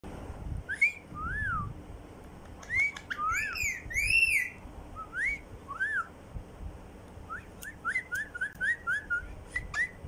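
Pet rose-ringed parakeet whistling: a string of clear notes, each rising and falling, then a quicker run of short notes near the end.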